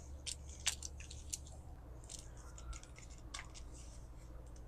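Faint, irregular snips and clicks of a hand cutting tool working insulation off the heavy-gauge wires of an RV power cord, the sharpest a little under a second in.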